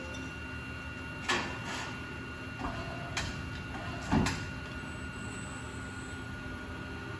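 Schechtl MAX 310 CNC sheet-metal folder running with a steady hum and a faint whine, while it forms a piece of drip edge. Several sharp knocks and clanks come over it, the loudest about four seconds in.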